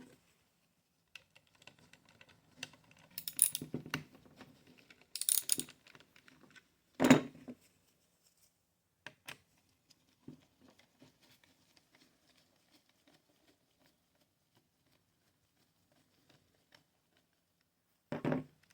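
Hand tools and small jigsaw parts being handled on a workbench: scattered clicks and clinks, a cluster of rattles about three to six seconds in, and one sharp knock about seven seconds in. The rest is mostly quiet, with a few faint ticks.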